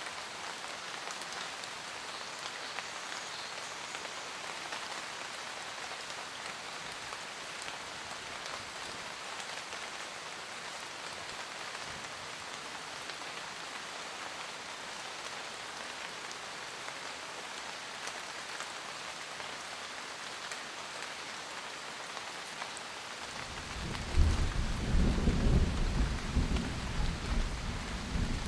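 Steady rain. Near the end a deep rumble of thunder rolls in, much louder than the rain.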